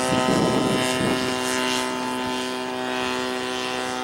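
Radio-controlled model airplane's gas engine running at a steady pitch, slowly fading.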